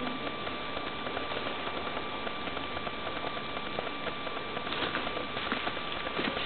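Steady background hiss with a faint, constant high hum and a few light scattered clicks. No distinct event stands out.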